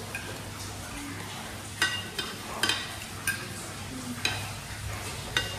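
Metal cutlery clinking and scraping against ceramic plates and bowls, about six sharp clinks over a low steady hum.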